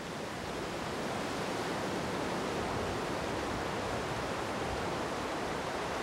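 Whitewater river rapids rushing, a steady noise of churning water.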